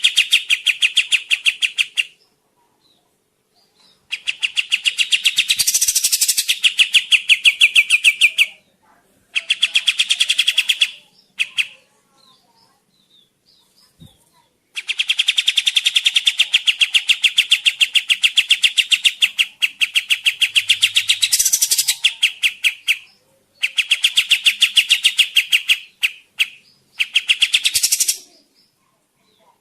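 Kapas tembak songbird singing: long, rapid trills of high repeated chirps, in phrases of a few seconds broken by short pauses, the longest running about eight seconds in the middle.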